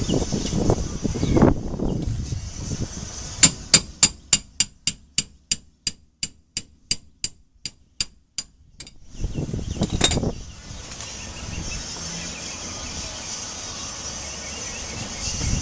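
A run of about twenty quick metallic hammer strikes, about four a second, slowly getting quieter and further apart, while working the rear wheel hub of a 1993 Honda Civic. About ten seconds in there is one louder clanking knock.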